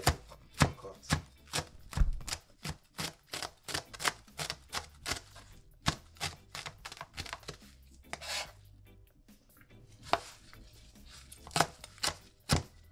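Chef's knife chopping callaloo leaves on a plastic cutting board: a run of sharp knocks, about two or three a second, with a short pause about two-thirds of the way through before the chopping resumes.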